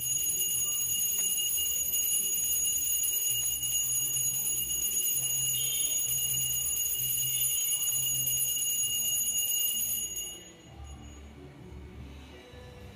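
Puja hand bell rung continuously, a steady high ringing that stops abruptly about ten seconds in.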